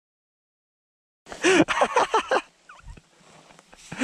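About a second of dead silence, then a person's voice calling out in a few short, loud, wordless cries.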